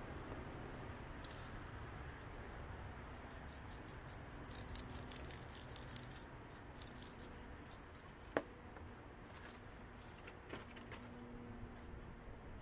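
Light metallic clicks and clinks of small metal parts being handled. They come as a quick cluster from about three to seven seconds in, then a sharper single click a little after eight seconds and a fainter one near the end, over a low steady hum.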